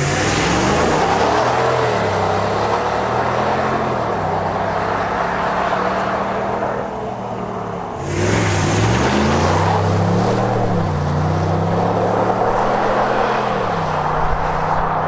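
Ram 1500 pickup engine under acceleration, its note rising, holding and dropping as it drives by, then rising and falling again after a break about eight seconds in.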